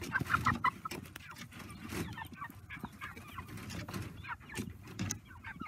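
Cornish Rock broiler chickens making short calls, several in quick succession at the start and then scattered quieter ones, mixed with scattered sharp clicks.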